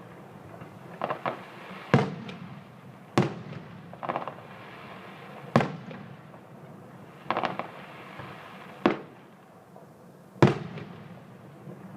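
Fireworks going off: a series of sharp bangs at irregular intervals of one to two seconds, some as single loud reports and some as quick crackling clusters of two or three, each trailing off in an echo. The loudest bang comes about ten and a half seconds in.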